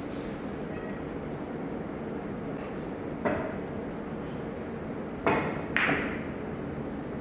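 Three-cushion carom billiard shot: a sharp click about three seconds in, then two louder clacks about half a second apart, the cue and balls striking. Underneath is a steady background hiss and a thin, intermittent high whine.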